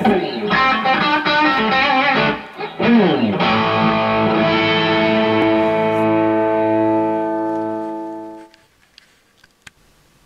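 Electric guitar intro music: a quick phrase of notes, then a held chord that rings out and fades away about eight and a half seconds in.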